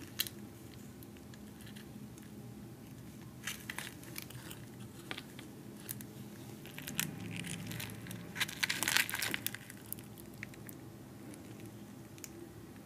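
Crispy breading of spicy fried chicken crackling and crunching close to the microphone. Scattered crisp crackles thicken into a dense burst about nine seconds in.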